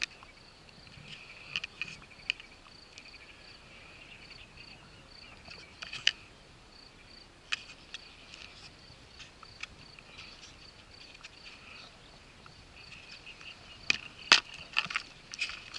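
An insect chirping faintly in a steady, regular high pulse, with scattered sharp clicks and taps that come thicker near the end.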